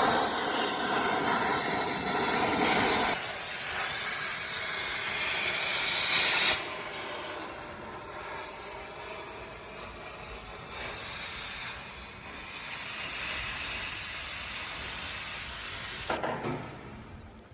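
Cutting torch hissing as it cuts off Huck bolts, louder for a few seconds from about three seconds in, then cutting off suddenly near the end.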